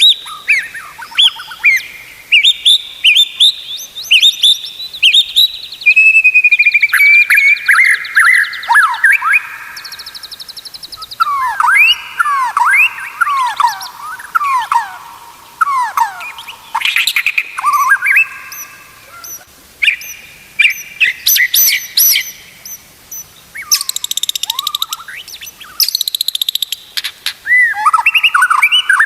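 White-rumped shama singing a long, varied song: clear slurred whistles, sweeping notes and fast trills, phrase after phrase with only brief pauses.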